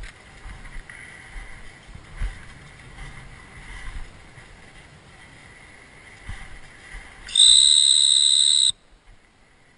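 A dog-training whistle sounds one long, steady, high-pitched blast of about a second and a half, a little past the middle: the single long blast used to stop a retriever working at a distance. Before it, wind and handling noise rumble on the microphone.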